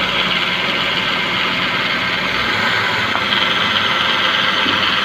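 Old-model Maruti Suzuki Baleno engine idling with the AC compressor engaged while the power steering is held at full lock, with a steady hiss of the power-steering fluid under pressure. This is the normal pressure sound; with the power-steering belt retightened, there is no belt squeal at full lock.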